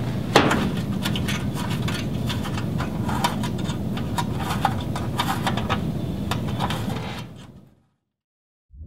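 Small clicks and taps of hands handling a sheet-metal chassis cover and turning its fastening screw by hand, over a steady low hum. The sound fades out near the end.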